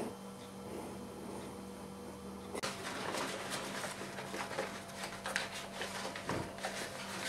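Crisp, irregular rustling and crinkling of paper lining as it is pressed and smoothed into a wooden writing box, starting about two and a half seconds in; before that only a faint steady hum.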